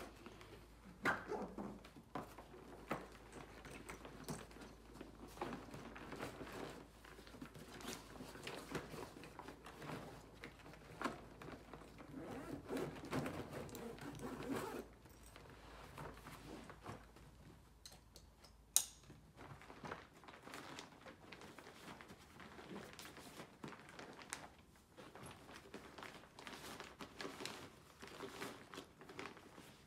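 Rustling and crinkling of fabric as a vacuum mattress is packed into its carry bag and the bag's zip is drawn closed, with scattered small knocks and clicks, one sharp click a little past halfway.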